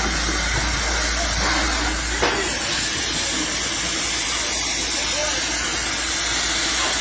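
Fire hose jet spraying water onto burning rubble, a steady hiss of spray and steam, with a single sharp knock about two seconds in.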